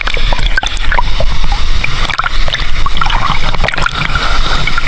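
Water splashing and sloshing in a waterfall pool, with many short splashes over a constant low rumble of falling water.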